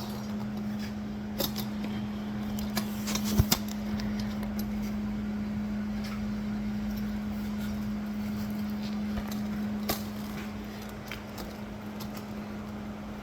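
A steady low hum, like a fan or motor running, with a few scattered sharp clicks and knocks, the loudest about three and a half seconds in.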